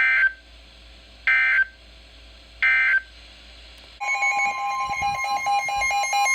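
NOAA Weather Radio sending three short digital SAME data bursts, each about a third of a second and spaced about a second and a half apart, over radio hiss: the end-of-message code closing the weekly test. About four seconds in, a loud alert tone starts, a steady tone under a fast pulsing beep pattern, signalling a new severe thunderstorm warning.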